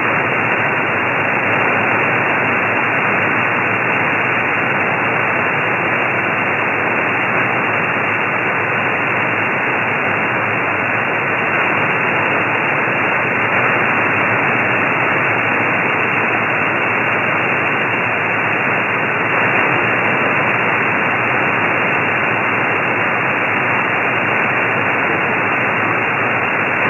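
Steady static hiss from a shortwave receiver tuned to an empty HF single-sideband (USB) aviation channel, the noise confined to the narrow voice passband.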